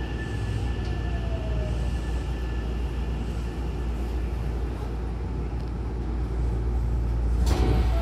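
Electric commuter train carriage rumbling as it comes to a stop at a platform, with a faint whine and a short falling tone early on. About seven and a half seconds in, the sliding doors open with a sudden short burst of air.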